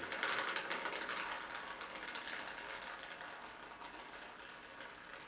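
A thin stream of alcohol from a plastic bottle pattering onto the plastic wrapper of an instant-noodle packet: a fast crackle of small splashes, loudest at the start and slowly fading as the stream thins.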